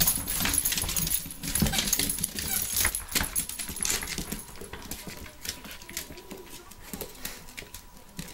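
Puppies' claws clicking and scrabbling on a hardwood floor, with collar tags jingling; the clicking is busiest in the first half and thins out after that.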